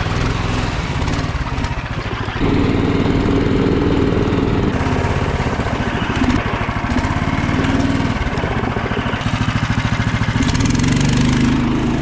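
Small engine of a SnowDog motorized tracked dog sled running steadily, louder from about two and a half seconds in.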